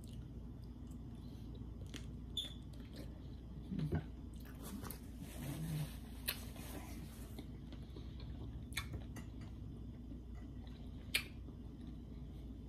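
Faint chewing of food, with a few short sharp clicks. In the middle, a paper napkin rustles against the face for a few seconds.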